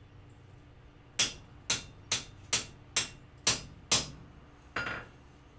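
Hand hammer striking a blacksmith's slit chisel held on hot steel bar stock over an anvil, cutting in layout marks. Seven sharp taps about two a second start about a second in, then one duller knock near the end.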